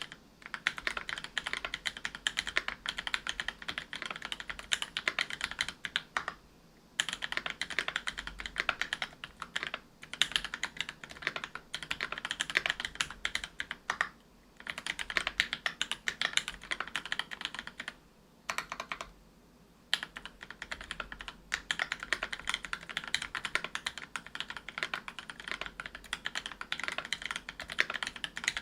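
Fast typing on a mechanical keyboard with lubed Gateron Silver Snow tactile 65g switches, a brass plate and GMK keycaps: dense runs of key clicks broken by short pauses, the longest about two thirds of the way in.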